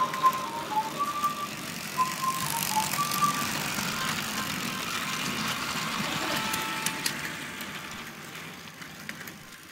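Battery-powered Takara Tomy Plarail toy bullet trains running on plastic track: a whirring clatter of motors and wheels with many small clicks, fading near the end. A short electronic tune of high beeping notes plays during the first few seconds.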